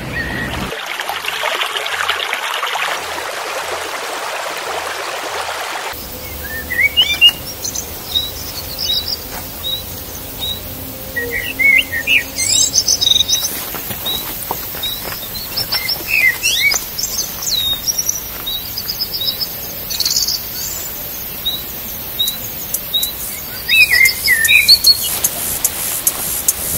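Wild songbirds chirping and calling: short high chirps and quick trills from several directions, with a run of evenly repeated chirps in the middle. For the first few seconds a steady hiss lies over them.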